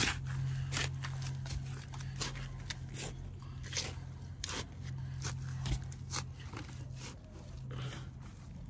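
Gloved hands digging and scraping through loose soil and dead leaves, giving irregular crunches and rustles, over a steady low hum.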